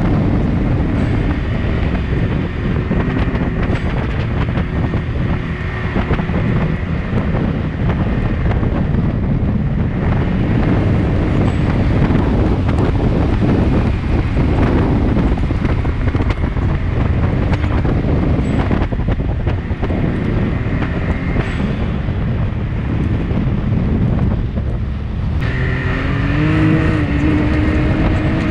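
Off-road dune vehicle on paddle sand tires running hard across loose sand, engine under load, with heavy wind buffeting on the microphone. A few seconds before the end the rushing noise eases and the engine's pitch comes through more clearly, rising and falling.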